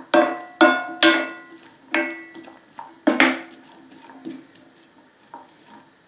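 A utensil stirring onions frying in butter in a frying pan, knocking against the pan five or six times, each knock ringing briefly; the knocks come farther apart and fainter toward the end.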